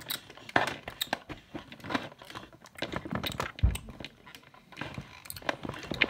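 Large plastic Tyrannosaurus rex toy being handled and walked across a hard floor: irregular plastic clicks, taps and rustles, with one heavier low thump a little past halfway.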